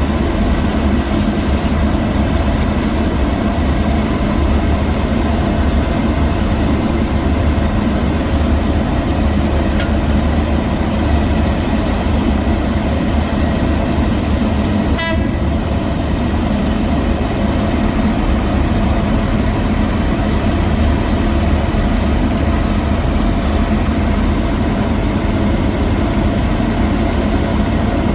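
Heavy diesel construction machinery running steadily, a loud continuous engine drone, with a single sharp click about halfway through.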